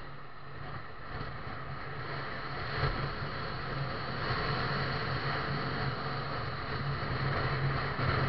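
A road vehicle driving: a steady low engine drone under tyre and wind noise, growing gradually louder as it gathers speed.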